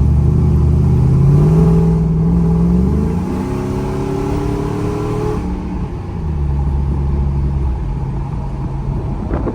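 Ford F-150's 5.4 L three-valve V8 with a Borla Pro XS muffler under light acceleration, heard from inside the cab with the windows down. The engine note climbs for the first few seconds, holds, then drops off about five and a half seconds in to a lower steady cruise, with wind noise throughout.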